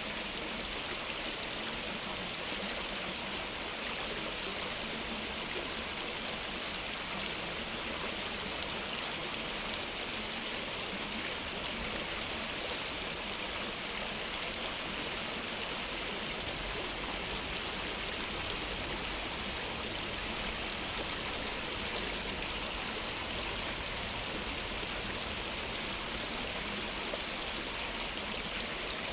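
Stream water running steadily: an even, unbroken rushing hiss that is strongest in the upper range.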